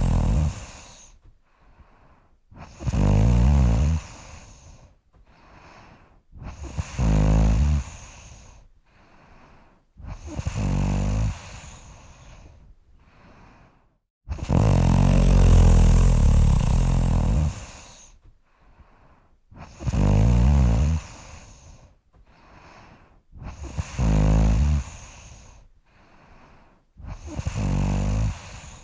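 A person snoring in a steady rhythm: seven loud snores, about one every four seconds, with a quieter breath between each. The snore about halfway through is drawn out to some three seconds.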